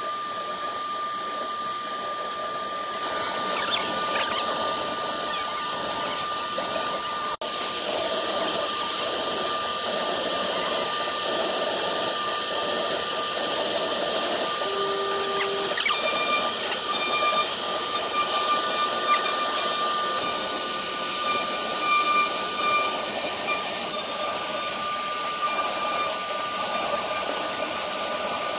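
CNC router spindle running with a steady whine while its bit cuts and engraves MDF, over an even hiss of the cutting.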